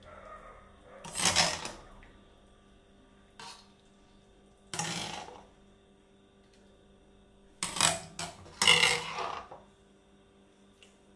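Cooking utensils scraping and knocking against stainless-steel pans as beans and tomato sauce are stirred and spooned. The strokes come about a second in, near five seconds, and in a quick cluster around eight to nine seconds.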